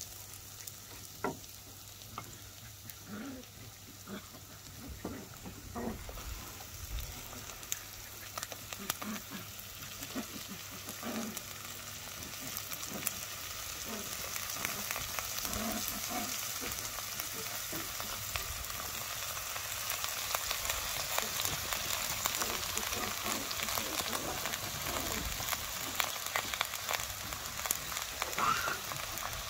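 Onions, chillies and curry leaves sizzling in oil in a clay pot, with a spoon knocking and scraping against the pot as they are stirred. About halfway through, strips of banana stem go into the pot and the sizzling grows louder.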